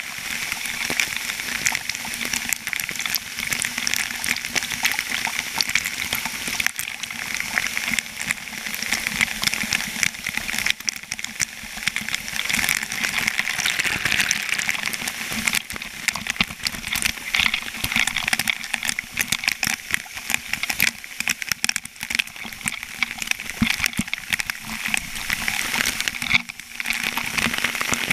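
Water gushing and spraying through a dam outlet, with spray and droplets hitting close to the microphone as a dense, steady patter.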